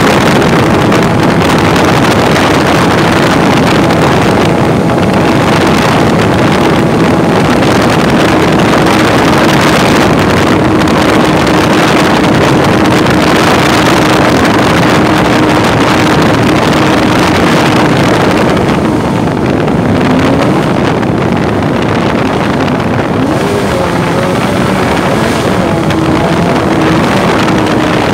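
Mini jet boat's engine running under way, a loud steady drone mixed with rushing water and wind on the microphone. About two-thirds of the way in the engine note eases off a little and starts to waver up and down.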